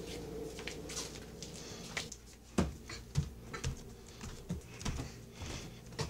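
Rubbing and knocking close to the microphone as the recording device is handled, with a run of irregular sharp thumps from about two and a half seconds in.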